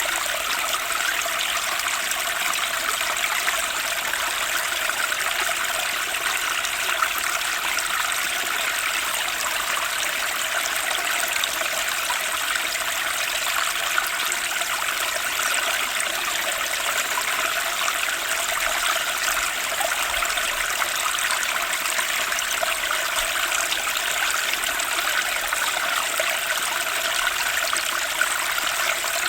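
Turbulent spring stream rushing steadily over its bed, an even, unbroken water noise.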